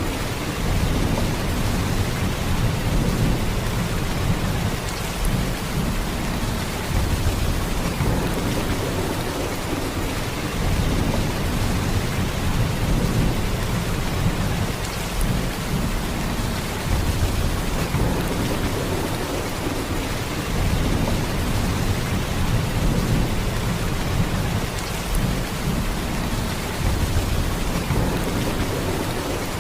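Heavy rain falling steadily: a dense, even hiss of rain with a deep low rumble underneath, swelling and easing gently.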